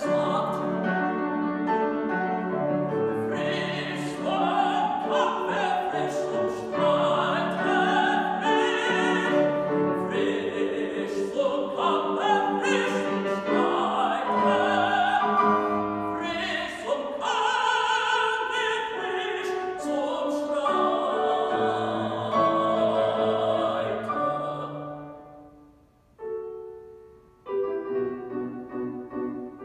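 A male operatic voice, a tenor, sings an aria in German to grand piano accompaniment. About 25 seconds in, the voice stops and the piano plays on alone in short phrases.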